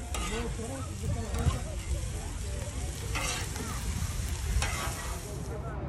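Meat and onions sizzling on a flat-top griddle, a steady frying hiss with two short louder noises about three and four and a half seconds in; the sizzle stops abruptly near the end.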